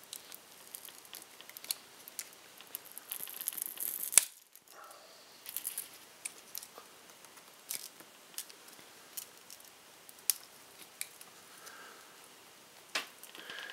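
Plastic pry tool and thin metal blade scraping and clicking against a Nexus 7's glass and bezel as the glass is pried off its adhesive: scattered sharp clicks, with a denser hissy scrape about three to four seconds in.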